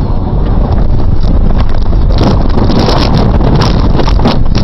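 Car's tyres running off the road onto a gravel verge in an emergency swerve, with loud rumbling noise throughout. From about two seconds in comes a dense rattling clatter of stones and jolts.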